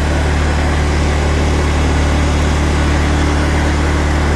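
A 24-horsepower Kohler commercial overhead-valve engine on a zero-turn riding mower, running steadily with an even hum.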